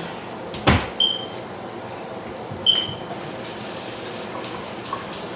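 Kitchen cookware sounds: a sharp knock, then two clinks of a metal utensil against a pot, each ringing briefly at the same high pitch, over a steady hiss.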